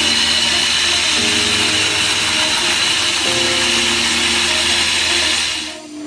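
Belt grinder running with a steady high grinding noise as a leaf-spring steel knife blade is worked on it, cutting off suddenly near the end. Background music plays throughout.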